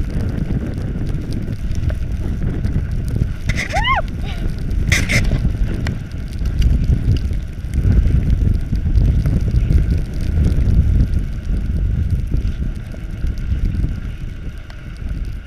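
Wind buffeting the microphone of a handlebar-mounted camera over the low rumble of a fat bike riding on packed snow. A short squeak that rises and falls comes about four seconds in, followed by a sharp click.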